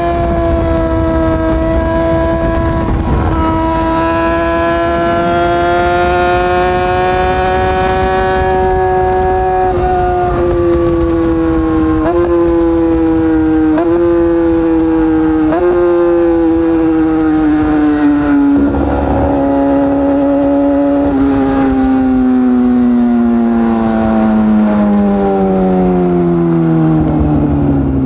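Yamaha R6's 600 cc inline-four through an Akrapovic shorty end can, held at high revs, then slowing with a series of downshifts, each one jumping the revs up about every one and a half to two seconds. In the last few seconds the engine note falls steadily as the bike rolls off, with wind rush on the microphone underneath.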